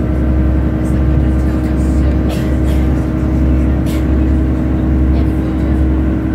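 Diesel passenger train running at speed, heard from inside the carriage: a steady low rumble with an engine hum, and a few sharp clicks and rattles about 1, 2.5 and 4 seconds in.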